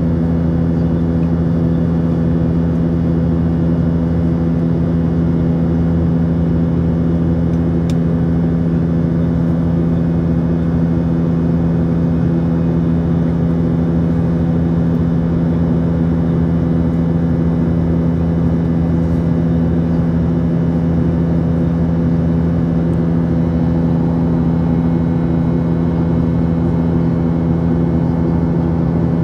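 Steady cabin drone of a Boeing 737-800 in flight, heard from a passenger seat: the CFM56-7B engines and the rush of air make a constant low hum with several steady tones in it.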